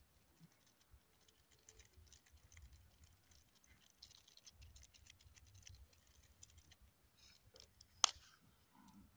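Small wood campfire crackling faintly, with scattered light ticks and pops and one sharp pop about eight seconds in.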